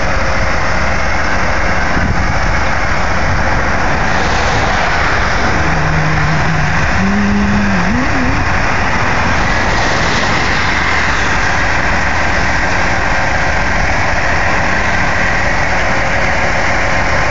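Heavy diesel truck engine running steadily, with no change in pitch or level.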